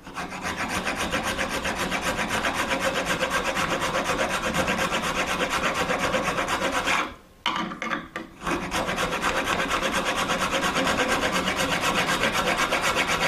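Small round rasp filing a string nock into the horn tip and wood of a yew recurve bow, in fast, even back-and-forth strokes. The filing pauses briefly about seven seconds in, then resumes.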